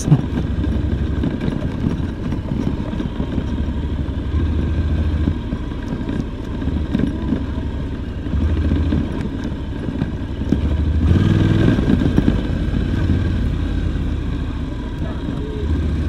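Honda NC750X motorcycle's parallel-twin engine running, a steady low drone that grows briefly louder about eleven seconds in.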